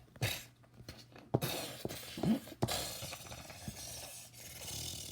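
A few sharp crashes and clattering impacts, with a rushing noise between and after them.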